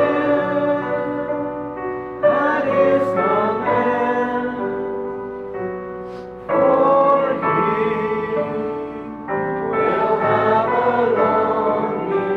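Choir singing a slow hymn in long held notes. The phrases last a few seconds each, and new ones begin about two, six and nine seconds in.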